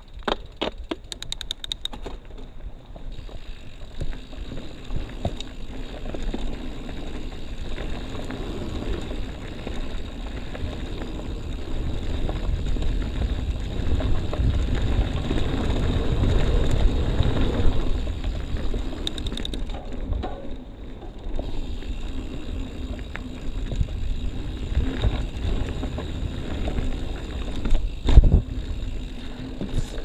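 Mountain bike ridden down a rough dirt trail: a continuous rumble of tyres with small rattles and clicks over bumps, loudest around the middle, and a sharp knock near the end.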